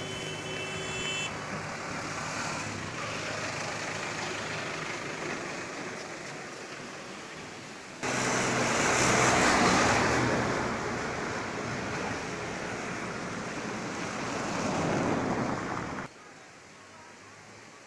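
Road traffic noise: vehicles running and passing. Engine hum at first. About a third of the way in, a sudden jump to a louder, hissing passage that swells and fades. Near the end, an abrupt drop to a quieter background.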